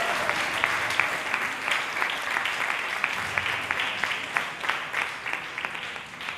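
Applause from a group of people clapping, which dies away near the end.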